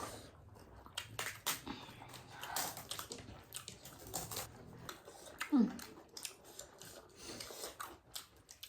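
Close-up eating sounds: quiet chewing with scattered small clicks and taps, with a brief low voice sound about five and a half seconds in.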